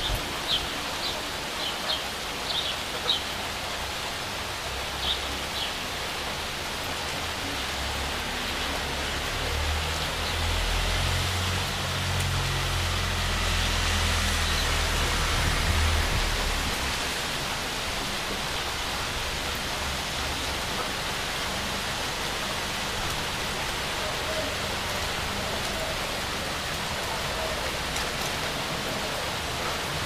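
Steady rain falling on tree leaves, an even hiss. A few short high bird chirps come in the first few seconds, and a low rumble swells and fades between about ten and seventeen seconds in.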